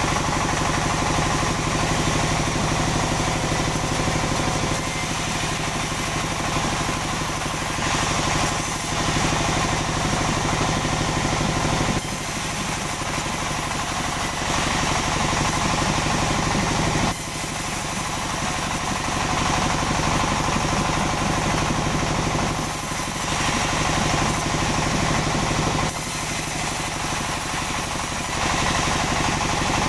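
Engine-driven sawmill running steadily, its engine hum shifting abruptly several times.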